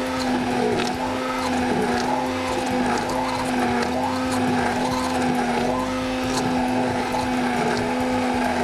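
Electric blender running steadily, puréeing cooked cherries into a sauce; a continuous motor hum at an even pitch.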